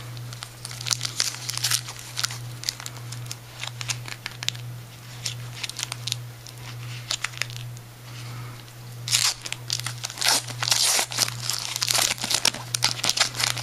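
Foil trading-card pack wrapper crinkling and tearing as the pack is opened, in a run of sharp crackles that grows thickest from about nine seconds in. A steady low hum runs underneath.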